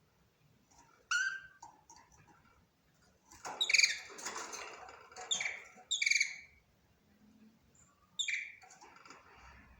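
Budgerigar chirping: short, sharp, high-pitched chirps spaced out with quiet gaps, and a brief burst of denser warbling chatter in the middle.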